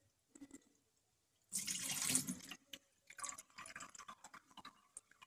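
A little water poured into a sink and running down through the plastic drain pipe: a splash about a second and a half in, then irregular trickling. This is a leak test of the freshly refitted sink drain fittings.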